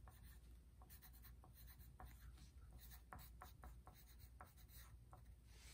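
Yellow wooden pencil writing words on a sheet of paper: faint, quick scratching strokes of graphite on paper.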